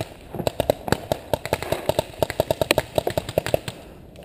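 Paintball marker firing a rapid string of shots, about seven a second, each a sharp pop. The string stops shortly before the end.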